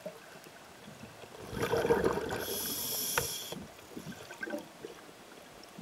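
Scuba diver's breath through a regulator, heard underwater: a burst of bubbling about a second and a half in, then a steady hiss of air lasting about a second.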